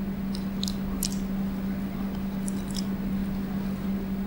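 Room tone through a microphone: a steady low hum, with a few faint short clicks in the first three seconds.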